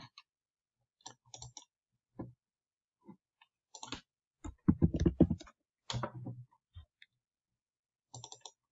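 Computer mouse clicking in scattered single clicks, with a quick run of keyboard typing about halfway through, the loudest part.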